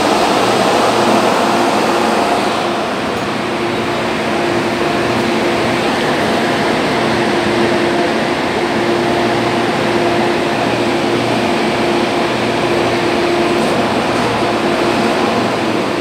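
Steady hum inside a Hong Kong MTR train carriage, with a constant low tone running through it and a slight dip in level about three seconds in.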